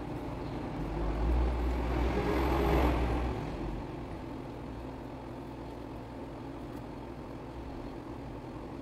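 A road vehicle passing by: a low rumble with road noise swells for about two and a half seconds, loudest near three seconds in, then fades back into a steady low background hum.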